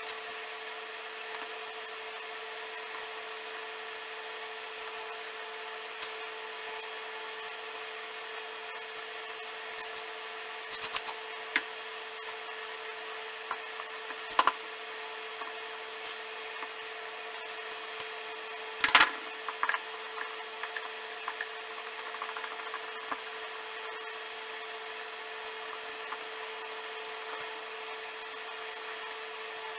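Glued wenge and maple staves knocking and clattering against each other and the bench as they are rolled up into a ring. There are a few light knocks about ten seconds in, a sharper one a few seconds later, and the loudest clatter about two-thirds of the way through. A steady background hum runs under it all.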